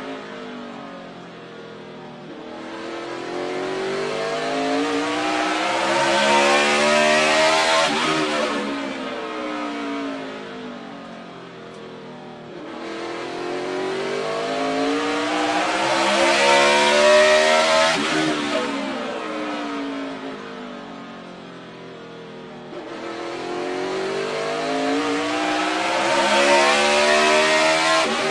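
NASCAR stock car's V8 engine at racing speed on a short track. Its note climbs steadily under full throttle down each straight, then falls away as the driver lifts for the turn. The cycle repeats about every ten seconds, three times.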